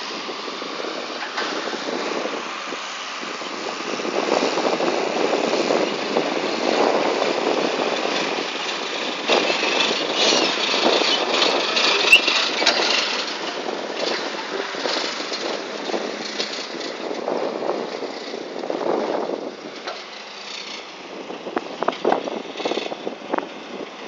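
Diesel engines of earthmoving machinery running, a dump truck close by and a bulldozer working. The noise swells in loudness for most of the stretch, then drops back, with a few sharp knocks near the end.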